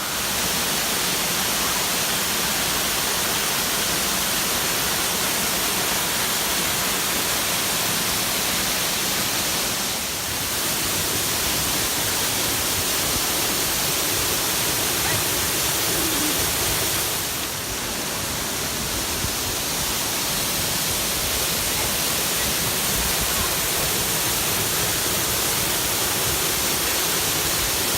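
A large waterfall pouring with a strong flow: a steady, even rush of falling water.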